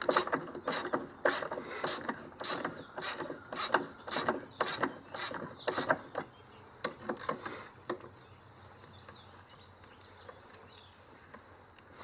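Socket ratchet wrench clicking in quick repeated strokes, about two or three a second, as a battery hold-down bracket nut is worked loose. The clicking stops about eight seconds in.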